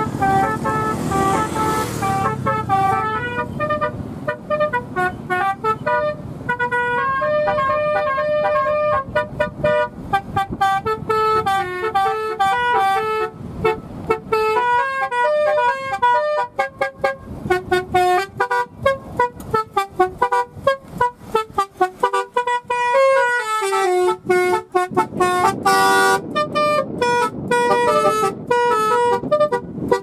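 A car's telolet horn plays a fast melody of short, changing multi-tone notes. There is a low rumble from the car in the first few seconds.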